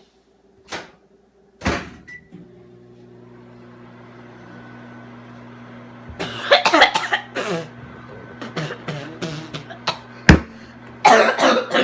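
A man coughing and sputtering in harsh fits from dry ground cinnamon held in his mouth, starting about six seconds in and again near the end, while a microwave oven hums steadily behind. One sharp knock comes just after ten seconds.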